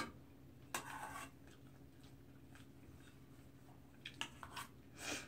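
Spoon scraping and tapping against a metal bowl as rice is stirred and mixed: a short scrape about a second in, a few light taps around four seconds, and another scrape near the end, all faint.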